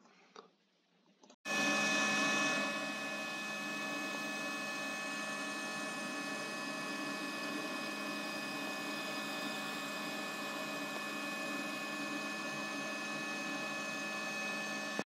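xTool M1 laser engraver running while it engraves cherry wood: a steady machine whir with a few steady tones, starting abruptly about a second and a half in and cutting off suddenly just before the end. Faint clicks come before it.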